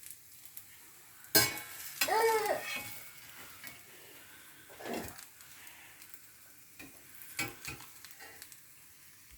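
Onion dosa sizzling in ghee in a hot pan, with a few sharp knocks and clinks of a utensil against the pan, the loudest about a second and a half in.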